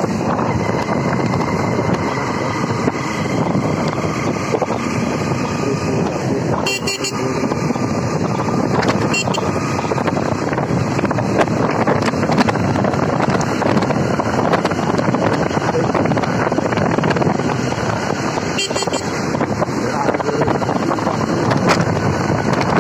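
Wind rushing over the microphone of a moving motorcycle, with the engine running under it: a steady, unbroken noise.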